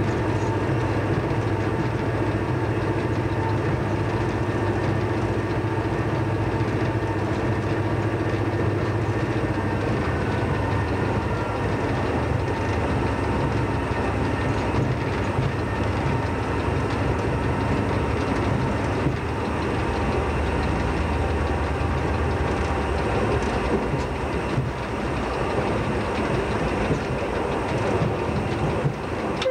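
A train's engine running steadily under way, heard from inside the driving cab, over wheel-on-rail running noise. The engine note drops lower partway through.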